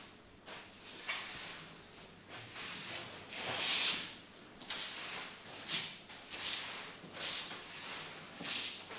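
Long-handled broom sweeping a hard floor in short strokes, about one a second, each a soft brushing hiss; one stroke a little before the middle is the loudest.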